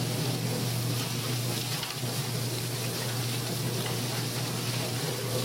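Poultry plucker machine running: a steady motor hum under an even rushing noise, with no change in pace.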